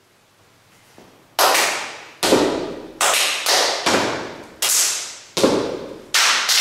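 A run of about eight loud, sharp percussive hits, each ringing out before the next, spaced roughly every half to three-quarters of a second and starting about a second and a half in.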